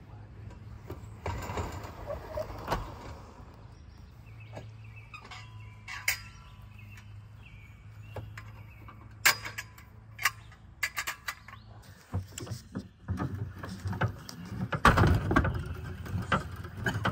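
Pop-up camper being taken down: sharp metallic clicks and clanks of its bunk-support poles and frame being handled in the middle, then the roof-lift crank being turned to lower the roof, a dense rattling run that is the loudest part, near the end.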